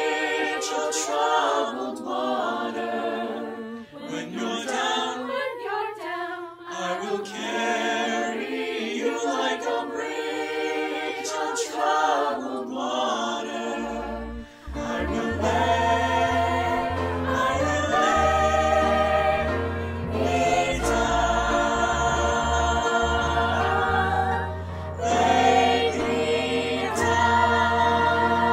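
Mixed choir of young male and female voices singing together in harmony, recorded separately and blended as a virtual choir. About halfway through, a deep sustained bass part comes in and the sound grows fuller.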